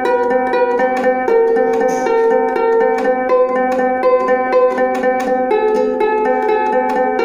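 Solo ukulele, fingerpicked, giving a steady stream of plucked notes and chords whose melody keeps moving.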